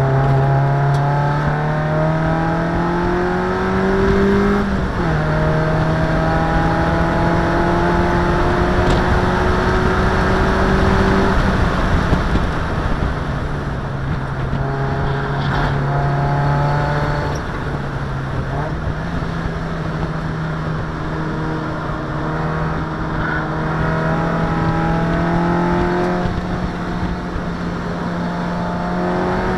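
Race car's engine heard from inside the cabin, running hard on track. The revs climb and fall back sharply about four and a half seconds in with an upshift, ease down around twelve and again around seventeen seconds, then climb slowly through the second half.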